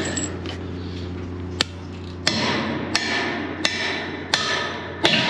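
Hammer blows, six strikes about two-thirds of a second apart, each with a short ring, over a steady low hum.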